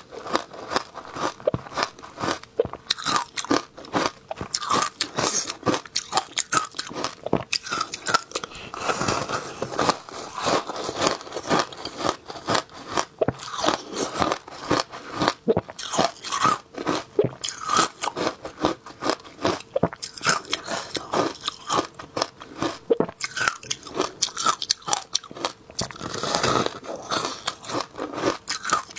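A person biting and chewing packed shaved ice dipped in passion fruit pulp: dense, irregular crunching, several crunches a second, all the way through.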